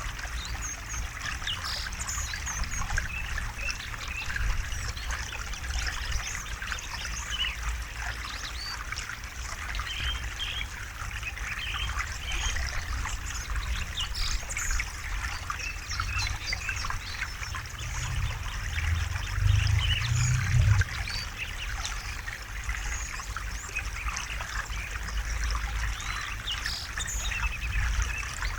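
River water trickling and babbling steadily, with a low rushing rumble that swells for a few seconds about two-thirds of the way through. Small bird calls come through the water sound.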